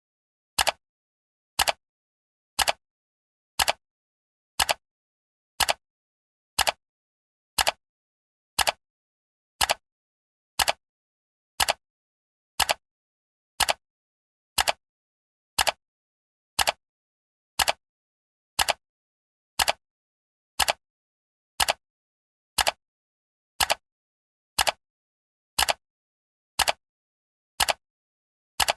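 Clock ticking sound effect for a countdown timer: one short, sharp tick every second, evenly spaced, with silence between the ticks.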